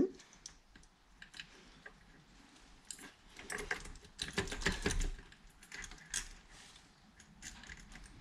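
Small metal clicks and clatter from a bicycle coaster-brake hub being taken apart by hand, busiest and loudest a few seconds in.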